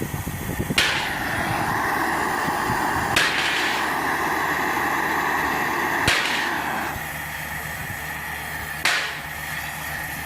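A steady hiss with a high whine, broken by four sharp taps about every two to three seconds; the hiss drops a little about seven seconds in.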